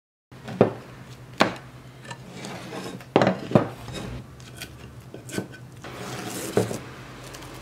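A cherry-wood workpiece being set down and shifted on a plywood workbench against a template: several sharp wooden knocks with sliding and scraping in between.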